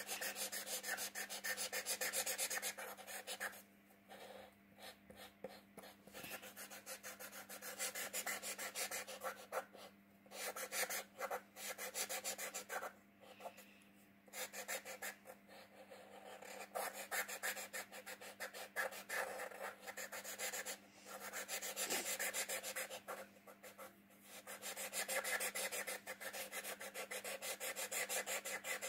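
Blue felt-tip marker scratching on paper in rapid back-and-forth strokes as a letter is coloured in, with several short pauses between runs of strokes.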